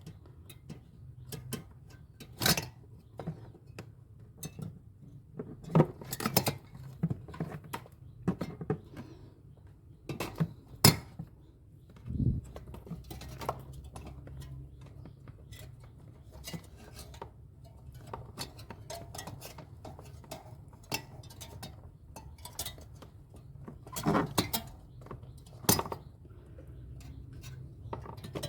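Irregular clicks, knocks and light clatter of hard objects being handled, like hand tools and small metal or plastic parts, with a steady low hum underneath. The loudest knocks come about six and eleven seconds in and again near the end.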